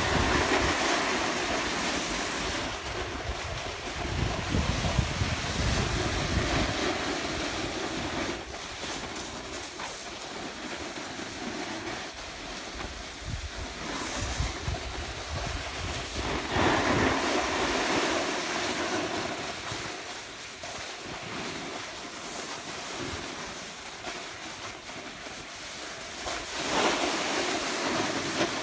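Steady hiss and scrape of snow sliding under a board on a groomed slope, swelling three times as edges bite into turns, with wind buffeting the microphone in low rumbles early on.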